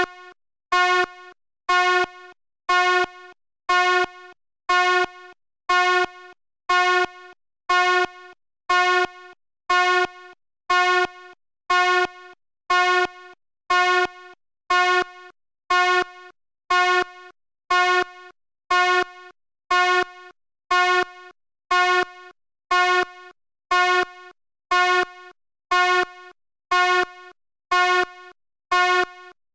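Fire alarm sounding in a steady repeating pattern: one pitched blast about every second, each starting loud and dropping to a quieter tail before the next.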